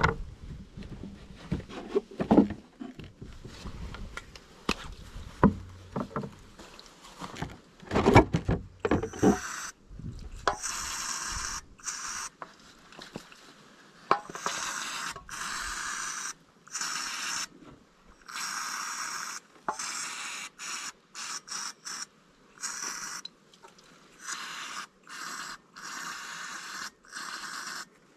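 Scraping with scattered knocks, then a series of short hissing bursts, each a second or two long, that start and stop sharply.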